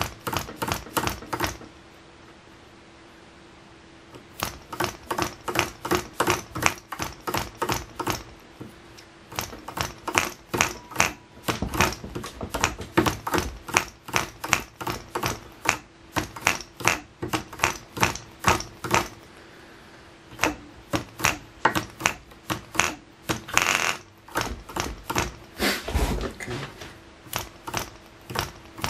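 Clan 0.24 cc model diesel engine being flicked over by hand at its propeller, again and again: runs of sharp clicks about three a second with two short pauses, as it turns over compression without catching and running.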